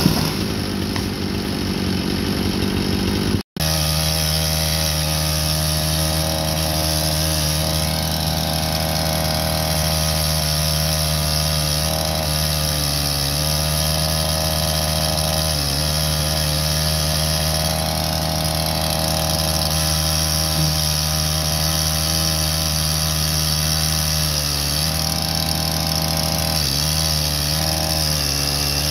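Diesel engine of a John Deere utility tractor running steadily at a fast idle, its pitch dipping briefly now and then as it takes load. The sound drops out for an instant about three and a half seconds in.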